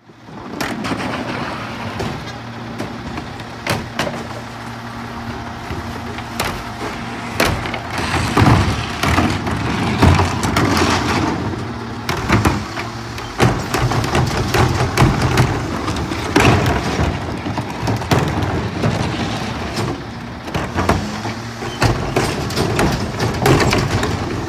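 Mack MRU garbage truck's engine running steadily behind its McNeilus rear-loader body while wheeled trash carts are tipped into the hopper, with repeated bangs and knocks of the carts against the hopper.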